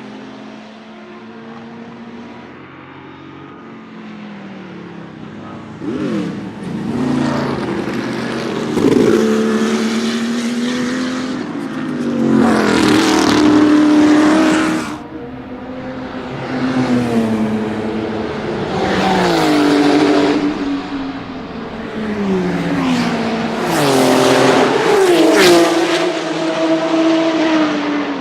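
Porsche 935 K3 race car's twin-turbo 3.2-litre flat-six running at full throttle. After a few quieter seconds of steady running, the engine note climbs and drops sharply again and again as it shifts through the gears, loudest about halfway through and again near the end.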